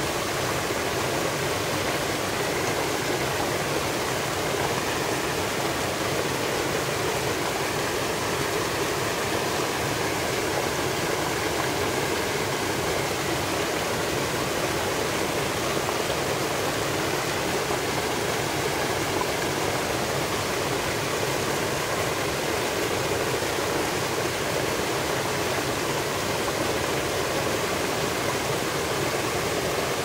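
Small waterfall pouring over boulders into a rocky stream: a steady, even rush of splashing water.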